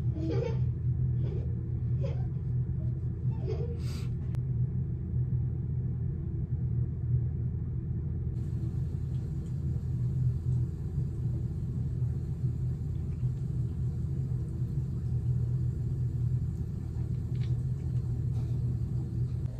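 A steady low machine hum that does not change, with a few faint brief sounds in the first four seconds.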